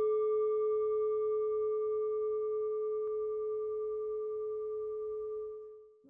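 A singing bowl ringing after a single strike, with one steady main tone and fainter higher overtones, slowly dying away and fading out near the end.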